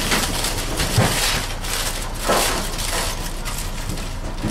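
Meat cleaver chopping barbecued meat on a cutting board: a few separate chops about a second apart over a steady noisy background.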